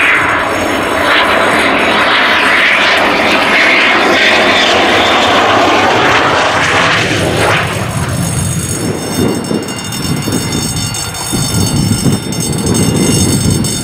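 Eurofighter Typhoon's twin EJ200 turbofan engines on landing approach: loud, steady jet noise with a high whine as the fighter comes in low, giving way after about eight seconds to a lower, uneven rumble as it rolls out on the runway.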